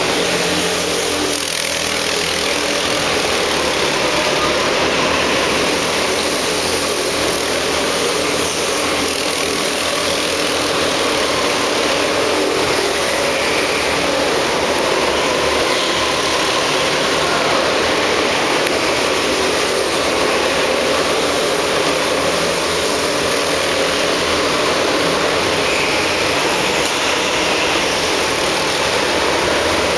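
Several go-kart engines running together around an indoor karting track, a loud, steady drone inside the hall.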